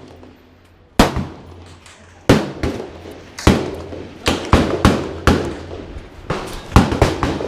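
Handgun and rifle shots fired at a shooting range: about a dozen sharp reports at uneven spacing, some in quick pairs, each ringing out briefly.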